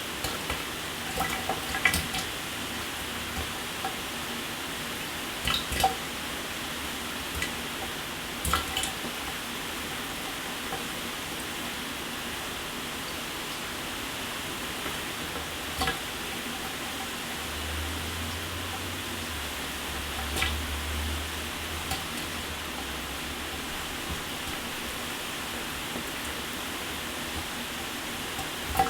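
Shower water running steadily, a constant even spray with a few sharper splashes and drips now and then. A faint low hum comes in for a few seconds in the middle.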